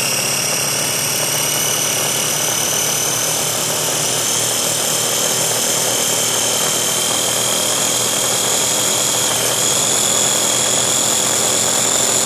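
Ninja food chopper's motor running steadily, its blade whirring through a pea, garlic and olive-oil dip as it purees. A steady motor whine creeps slightly higher in pitch.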